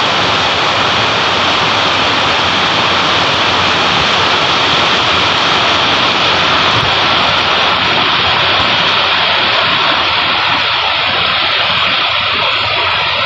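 Heavy rain pouring steadily onto a wet concrete rooftop and potted plants: a loud, even hiss with no pauses.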